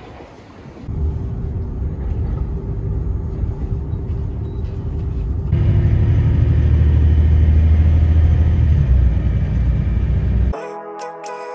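Steady low rumble of a vehicle in motion with a faint constant hum, growing louder about halfway through, then cut off near the end as music begins.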